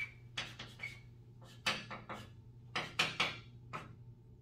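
Chalk writing on a chalkboard: a series of short scratchy taps and strokes in small clusters, with two brief high squeaks in the first second.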